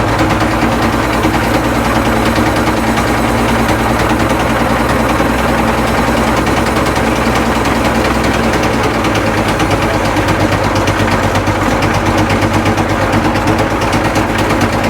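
Caterpillar 977L track loader's diesel engine running steadily with a loud, rapid knock. It sounds loose, as if it is going to come apart, though it has good oil pressure.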